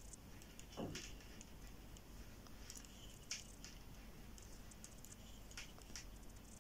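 Metal knitting needles clicking faintly and irregularly against each other as knit stitches are worked, with a short falling swish about a second in.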